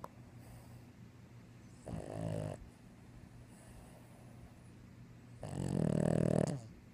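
Snoring in sleep: a short snore about two seconds in, then a longer, louder one near the end.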